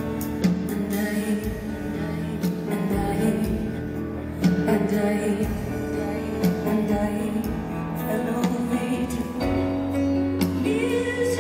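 Live concert music led by a Bösendorfer grand piano, with sustained chords over a steady bass, recorded from the audience close to the stage.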